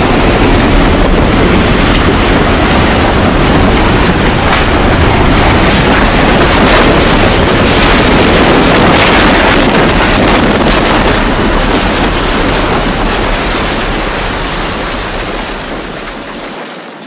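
Loud, steady roar of tornado-force wind, a sound effect, fading away over the last few seconds.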